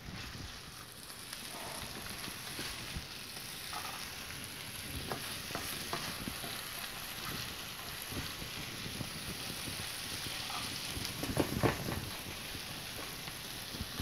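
Sliced yellow squash sizzling as it fries in a nonstick skillet, with a spatula scraping and clicking against the pan as the slices are stirred. The scraping is loudest for a moment about three-quarters of the way through.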